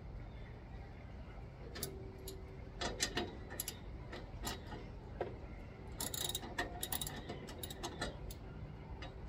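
Hand tools working on metal: irregular sharp clicks and clinks, thickest about six seconds in, as a small metal plate for the wiring is fastened in place.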